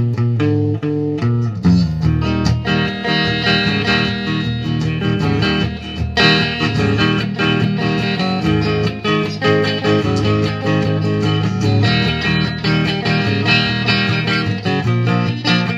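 Electric guitar played through a small Marshall combo amplifier: a continuous run of quickly changing notes that starts abruptly.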